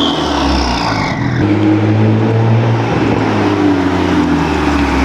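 BMW 335i's turbocharged inline-six running through a newly fitted VRSF exhaust, its engine note falling and rising in pitch as it is driven. A high whine glides down in pitch in the first second or so.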